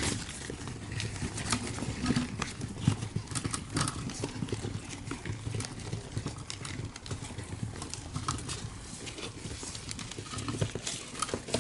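A crowd of Syrian hamsters scrabbling over one another on newspaper: an irregular patter of small claw clicks and paper rustling.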